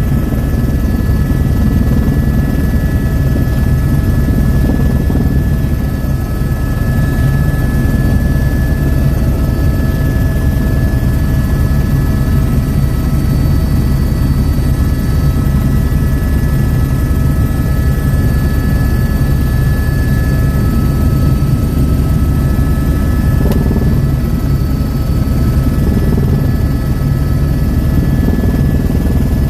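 Helicopter in flight: a steady, fast beat of the rotor under a constant high turbine whine, loud and unchanging.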